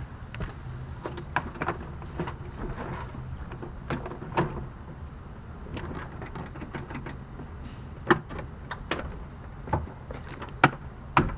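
Plastic clicks and knocks of a car's interior door trim panel being handled and fitted back onto the door, irregular, with the sharpest knocks about eight seconds in and twice near the end.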